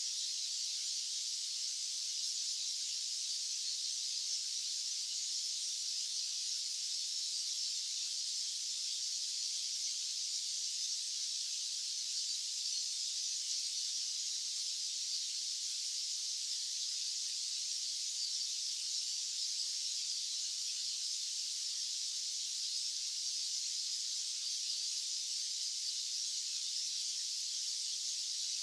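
Steady white-noise hiss, high and even, with no low end and no change throughout.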